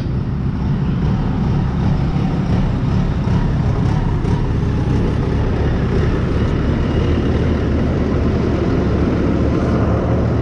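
Farm diesel engine idling with a steady low rumble.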